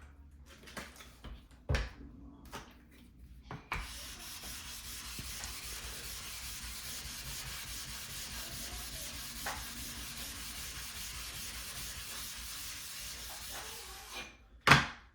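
A wet Shapton Kuromaku ceramic whetstone being lapped flat on a rough flattening surface: a steady gritty rubbing, after a few light knocks as the pieces are handled. A sharp knock near the end.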